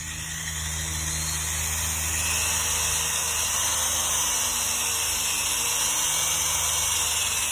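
Electric drill running steadily, its bit boring through a piece of aluminum.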